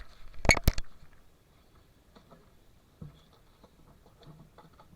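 Parts of a removed fuel pump assembly being handled: a quick cluster of sharp clicks and knocks about half a second in, then a few faint ticks.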